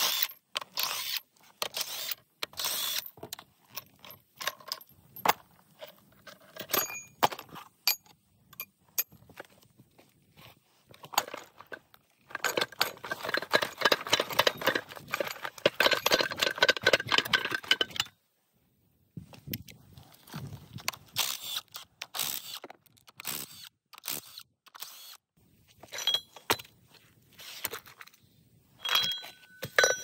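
Heavy steel parts of a LongGong 850 front axle differential clinking, knocking and scraping as they are unbolted and handled during teardown. A little before the middle comes a few seconds of dense, rapid rattling that cuts off suddenly.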